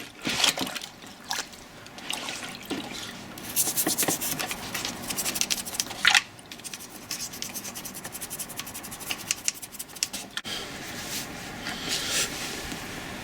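Toothbrush scrubbing a grimy lathe faceplate in a tub of soapy water: rapid scrubbing strokes, densest in the middle, with water dripping and splashing.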